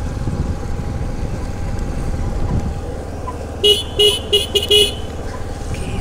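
Motorbike running along the road with a steady low rumble of engine, tyres and wind. A bit more than halfway through, a vehicle horn beeps five times in quick succession.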